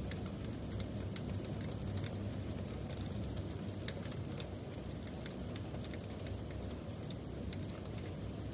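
Rain falling steadily, with scattered drops ticking sharply, over a steady low hum.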